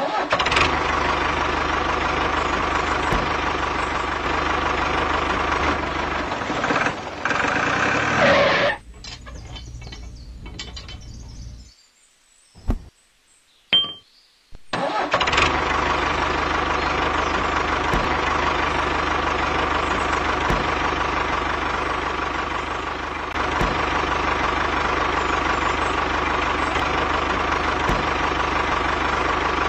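Tractor engine running steadily. About nine seconds in it drops lower, then it cuts out for a few seconds apart from a couple of brief sounds. From around fifteen seconds it runs steadily again.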